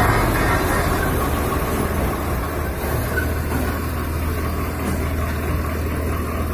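Diesel engines of a Mahindra 255 and a Swaraj 855 tractor running steadily with a deep, even hum, a little louder in the first second.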